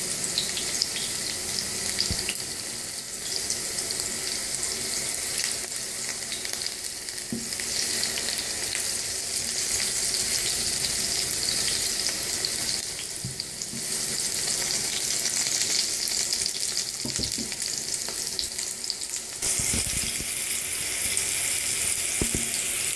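Cubed eggplant sizzling as it fries in hot oil in a nonstick pan, with a few light scrapes and taps of a silicone spatula stirring the cubes. The sizzle grows a little louder near the end.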